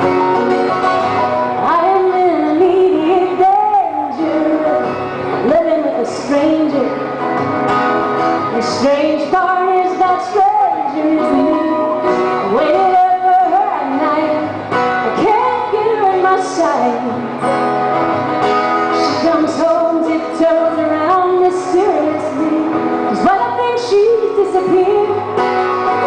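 A woman singing a folk song live, accompanied by strummed acoustic guitar.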